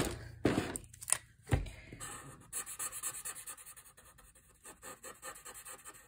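A yellow felt-tip marker scratching on paper in quick, short back-and-forth colouring strokes. It follows a few knocks in the first two seconds.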